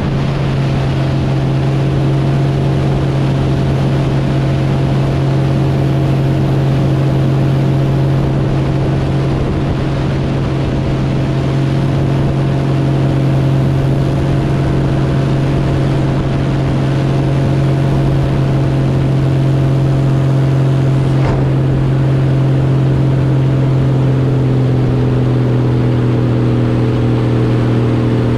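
Helio Courier's geared Lycoming six-cylinder engine and propeller running steadily in cruise flight, a strong low drone with wind rush over a camera mounted outside the cabin. Near the end, part of the engine note drops slightly in pitch.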